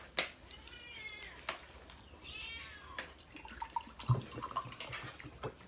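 A cat meowing twice, each call drawn out for most of a second, with light clinks of spoons and dishes around it.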